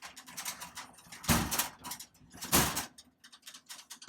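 Vending machine hardware being handled: a run of small clicks and rattles, with two louder sliding scrapes about a second apart.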